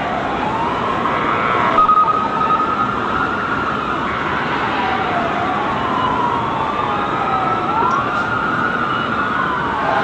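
Several emergency-vehicle sirens wailing at once, their pitches sweeping up and down and overlapping, over a steady wash of street noise. A single steady tone cuts in briefly about two seconds in.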